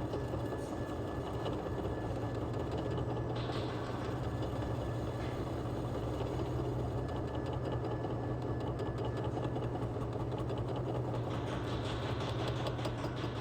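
Conventional lathe running steadily with a constant low hum; about three-quarters of the way through, a higher hiss joins, with light ticking near the end.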